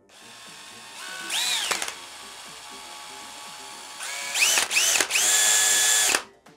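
Power drill spinning a small drill bit in a mini chuck adapter, run in short trigger bursts: a quick rise and fall in pitch about a second and a half in, two more around four and a half seconds, then held at speed for about a second before stopping just after six seconds. It is enlarging the centre hole of a pinion gear to fit a 2 mm motor shaft.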